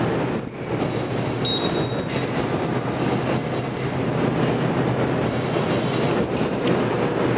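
Steady, loud machinery noise with a low hum, with a brief high tone about a second and a half in.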